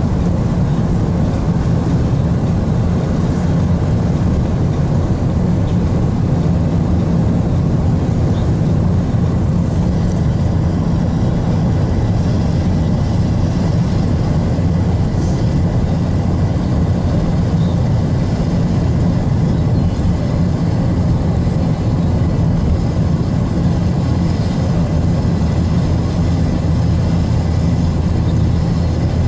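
Steady in-cabin noise of a car driving at speed: an even, low rumble of engine and tyres on the road.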